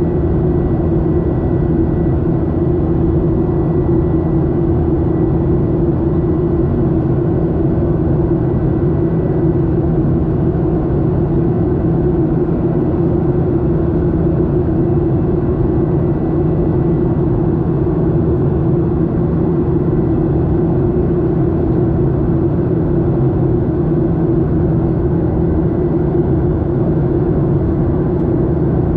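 Steady engine and airflow drone inside the cabin of a Boeing 737-800 in flight, with its CFM56-7B turbofans running at steady power. It is a constant low drone with a steady hum in the low mids and a faint high whine.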